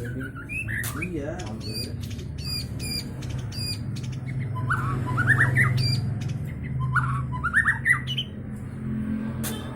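A bird calling, with high squeaky notes and two quick series of rising chirps about five and seven seconds in, over a steady low hum.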